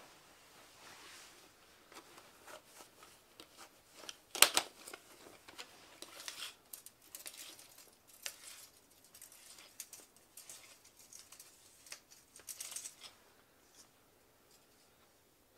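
A tape measure being drawn out by gloved hands: scattered small clicks and rustles, with one sharp, louder clack about four and a half seconds in.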